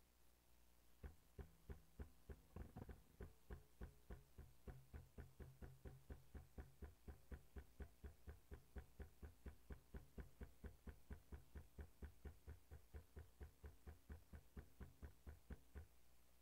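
Hammer blows on a steel sheet clamped in a bench vise, bending a patch panel over its edge: a fast, even run of faint taps, about four a second, starting about a second in and stopping near the end, with the sheet ringing a little under the early blows.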